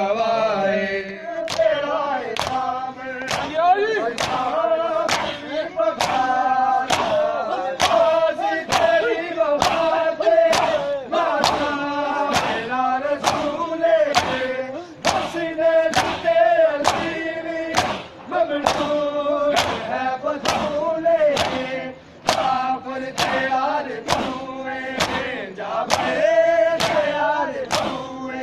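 A crowd of men beating their chests with open hands in matam, sharp unison slaps about two a second. Male voices chant a noha over the slaps, with the crowd joining in.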